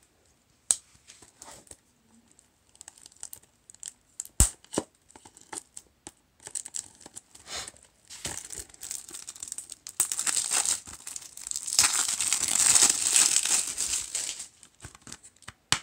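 Plastic shrink wrap being slit with a pocketknife and pulled off a Blu-ray case. Scattered small ticks and a sharp click come about four seconds in, then loud crinkling and tearing from about ten seconds in until near the end.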